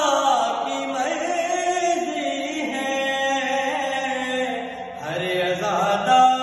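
A man's solo voice chanting a manqabat, an Urdu devotional poem, in long held, wavering notes over a steady low hum. The line falls away about five seconds in and a new phrase begins.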